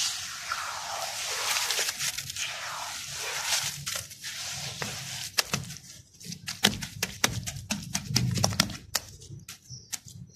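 Wet crushed red dirt being squeezed and kneaded by hand in a basin, a steady gritty squishing. From about halfway, wet palms pat the mud surface in quick, sharp smacks.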